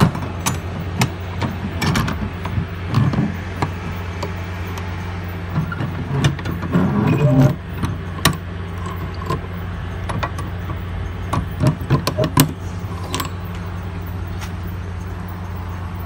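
Sharp clicks, knocks and rattles of metal door latch hardware and keys being handled on a refrigerated truck body's rear door, scattered through the first dozen seconds. Under them runs a steady low motor hum.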